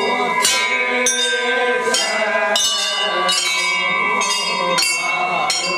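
Temple bells struck over and over, a new stroke about every two-thirds of a second, each ringing on into the next.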